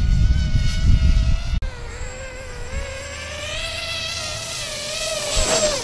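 Radio-controlled model biplane's propeller whining overhead, with wind rumbling on the microphone. After a cut about a second and a half in, the whine slowly rises and grows louder as the plane comes in low, then drops sharply in pitch as it passes close near the end.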